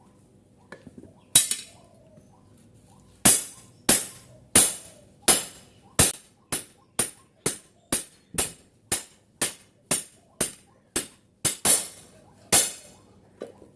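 Hand hammer striking the steel of a machete blade, about twenty sharp ringing blows. After two early strikes the blows settle into a steady rhythm of about two a second.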